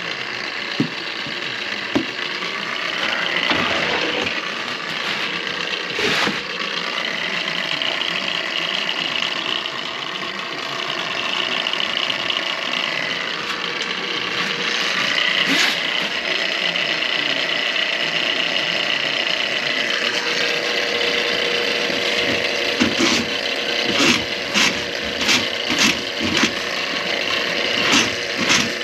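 Motorized drain-cleaning machine (power snake) running steadily with a mechanical rattle, its cable working through a kitchen drain line clogged with grease. Near the end comes a run of sharp knocks about a second apart.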